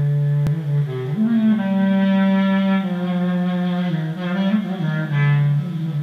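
Clarinet playing a taksim, a free improvised solo in Turkish style: a long low note held, then a winding melody with slides between notes. A single sharp click sounds about half a second in.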